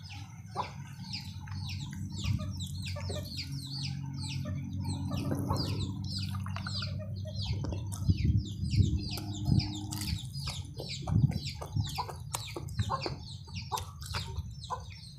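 Chickens clucking and peeping in quick, repeated short falling calls. A low steady hum sits underneath for the first ten seconds or so. From about eight seconds in come close chewing and mouth sounds of someone eating by hand.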